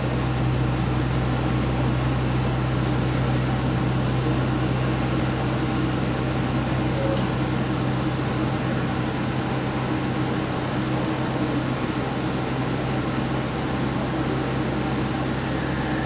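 Steady low drone of a diesel limited-express train running at speed, heard inside the lead car behind the driver's cab, with a constant hum and a faint wash of running noise.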